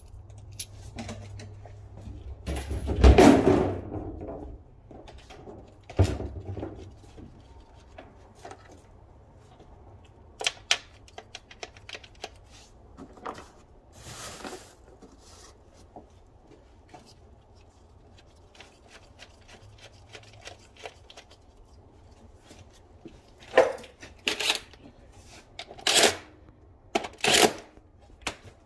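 Parts and tools being handled around an engine bay during a spark plug job: a loud rustling clatter about three seconds in, a thump, scattered light clicks, then four sharp knocks near the end.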